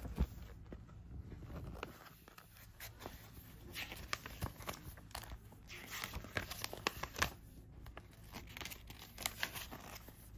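Paper rustling and crinkling in short, irregular bursts as a folded instruction manual is handled and its pages turned.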